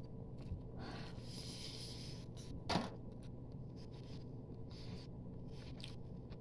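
A person biting and chewing a chicken wing, with faint small mouth clicks and rubbing sounds and one brief louder sound about three seconds in.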